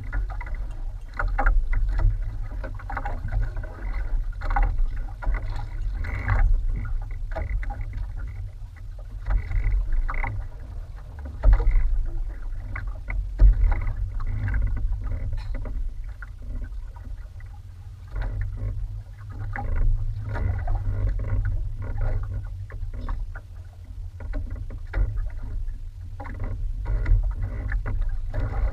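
Open-sea ambience aboard a small wooden outrigger boat: wind rumbling on the microphone and water splashing and slapping against the hull and outriggers in irregular bursts.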